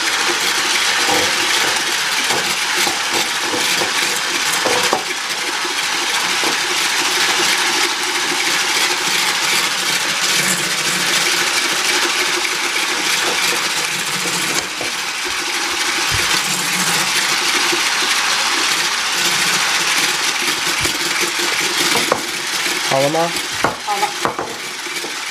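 Electric hand mixer running steadily at speed, its beaters whipping egg whites in a stainless steel bowl toward stiff peaks for meringue.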